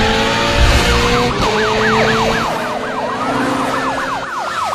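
Several police sirens sounding together. A held steady tone in the first second or so gives way to fast overlapping rising-and-falling yelps, about three a second, with one slower wail gliding down near the end.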